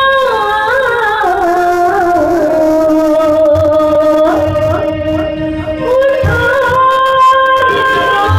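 A woman singing a South Asian melody through a stage microphone. She starts on a held note, then slides down through ornamented, melismatic runs. Tabla strokes come in low underneath from about halfway through.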